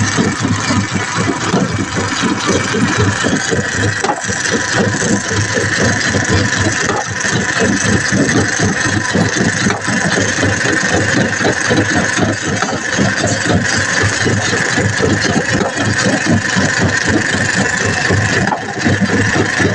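Engine running steadily, with a continuous fast, even pulsing.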